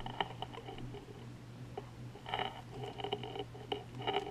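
Light handling noises of trading cards and a foil card pack being set down and picked up: scattered soft taps and rustles, with a small cluster about halfway through, over a faint steady hum.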